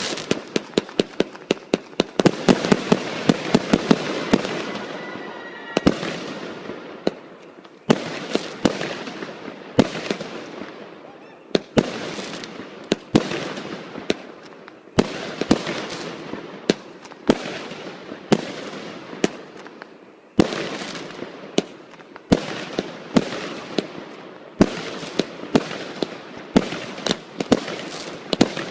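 Fireworks going off in volley after volley: clusters of sharp bangs, each trailing off in crackling, with a fresh salvo about every two seconds.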